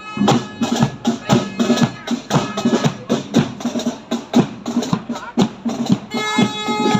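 Music with a steady drumbeat of about three beats a second under high held notes; about a second before the end the held notes grow stronger and fuller.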